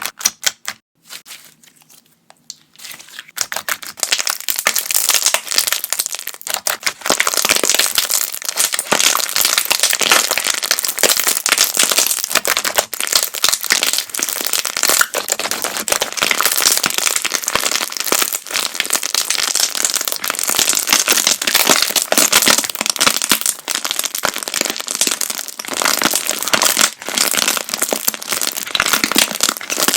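Clear slime being worked by hand, letting off a loud, dense stream of popping and crackling air-bubble pops, played sped up. A few separate pops open it, then after a short lull the crackling runs almost without a break from about three seconds in.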